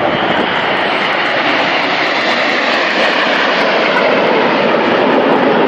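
Display aircraft engine noise overhead: a steady rushing sound that grows slowly louder.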